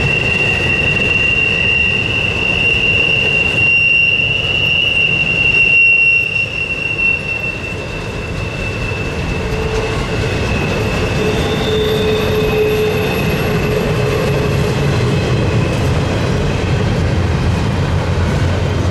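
Norfolk Southern intermodal freight train rolling past, its steel wheels giving a sustained high squeal over the steady rumble of the cars. A second, higher squeal joins about two-thirds of the way through.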